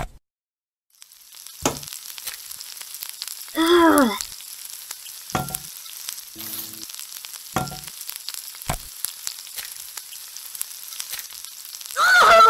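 Steady sizzling hiss like food frying in hot oil, with several sharp knocks over it and two short falling squeals, one about four seconds in and one near the end.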